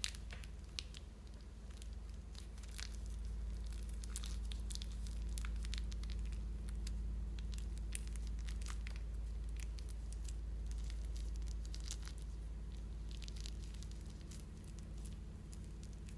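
Plastic piping bag crinkling as it is squeezed, with small foam beads pushed out of it into clear glue, heard as a scatter of fine irregular ticks. A steady low hum runs underneath.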